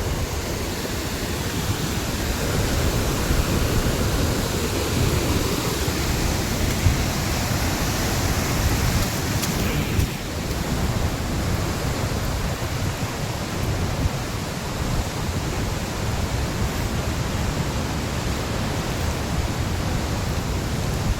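Steady roar of a swollen, rushing flood river, holding a constant level throughout.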